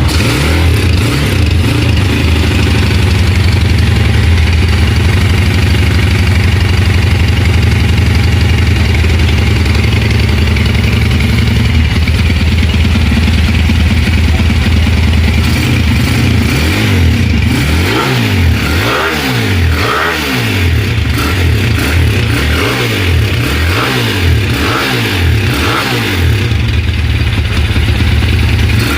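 Honda CG125 motorcycle's single-cylinder four-stroke engine running steadily, then from about halfway being revved in short repeated blips, its pitch rising and falling about once a second.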